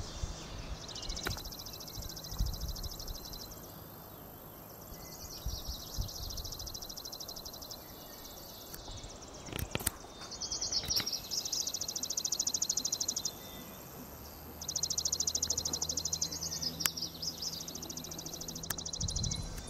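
Dawn bird chorus: a songbird repeatedly sings fast, even trills, each bout lasting two to four seconds, over a thin, steady, very high-pitched whine.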